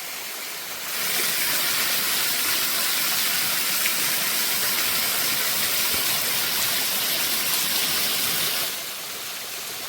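Steady rushing water of a mountain waterfall, as an even hiss; it gets clearly louder about a second in and drops back to the softer level near the end.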